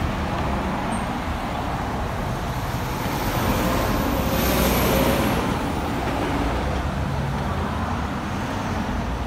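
Road traffic passing close by: a steady wash of car tyre and engine noise, with one vehicle growing louder as it goes past about four to five seconds in.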